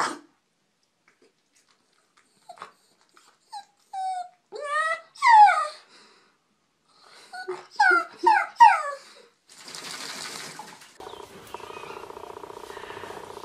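A wet sheltie-type dog in a bathtub whining and howling: a few short whines, then a run of louder rising-and-falling whines. Near the end comes a steady low growl from a cat being washed in a sink.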